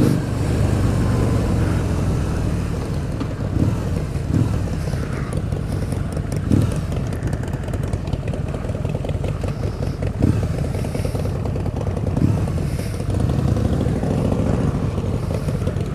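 Harley-Davidson V-Rod's V-twin engine running as the motorcycle is ridden, with a steady rush of wind noise over it.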